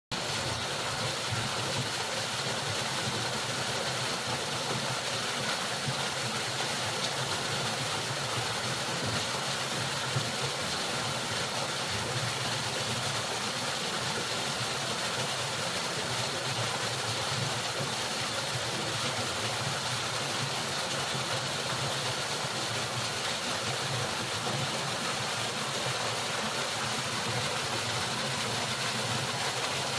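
Waterfall: water falling steadily in an even, unbroken rush.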